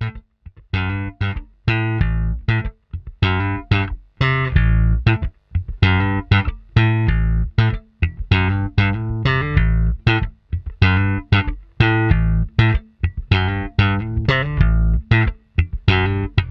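Magna PB electric bass, a Precision-style bass with basswood body and maple neck, played through a Fender combo amp: a run of plucked notes in a steady rhythm, with short breaks between phrases.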